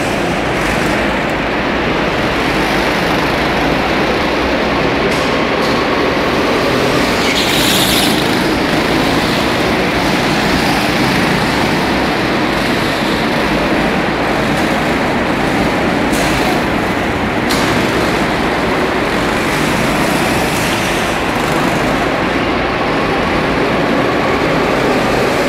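Several go-kart engines running steadily as the karts lap an indoor track, loud and continuous in a large hall.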